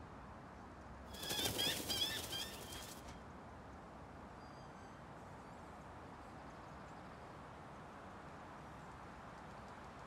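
A bird flutters past with quick wing flaps and a few chirps, starting about a second in and lasting some two seconds, over a soft, steady forest ambience. Faint, high chirps follow a little later.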